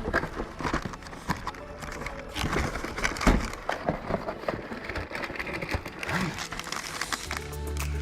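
Hands handling parts: irregular clicks, taps and crinkling.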